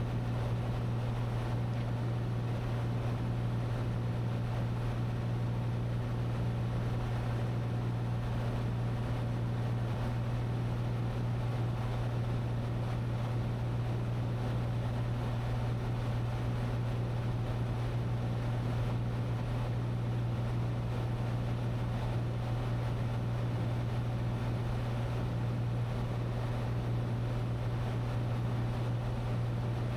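Cessna 182T's Lycoming IO-540 six-cylinder engine and propeller droning steadily at cruise power, with no change in pitch.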